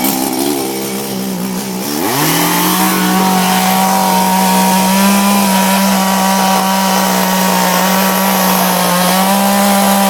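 Two-stroke chainsaw engine dipping briefly, then revving up sharply about two seconds in and held at a steady high speed.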